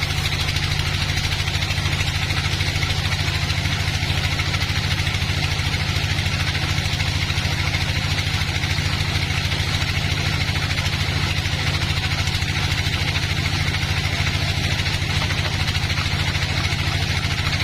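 Sawmill engine running steadily at an even speed, its hum unchanging throughout.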